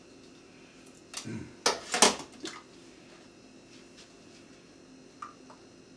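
A spoon and containers clinking and knocking on a kitchen bench as yoghurt is spooned in. A short cluster of clinks and knocks comes between about one and two and a half seconds in, the loudest about two seconds in, then one faint click near five seconds.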